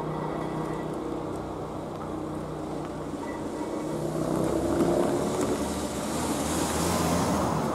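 Small car's engine and tyres approaching at low speed. It grows louder as the car crosses the railway tracks about four to five seconds in, then turns into tyre hiss as it passes close by.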